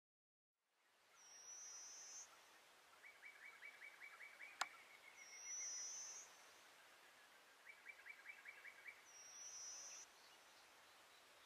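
Faint outdoor ambience with small animals calling: three high, thin calls about a second long each, and twice a fast run of ticks, several a second. A single sharp click sounds in the middle.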